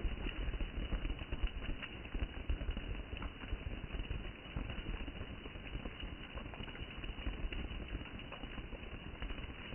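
Rain falling steadily: an even hiss of water with many small drop ticks scattered through it.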